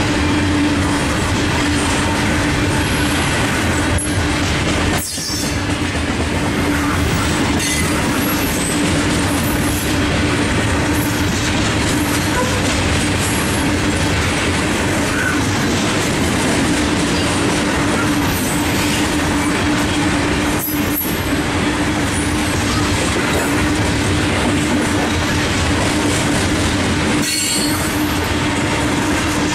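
Loaded freight cars of a coal train rolling past at close range: steady wheel-on-rail rumble and clatter with a continuous whine running underneath.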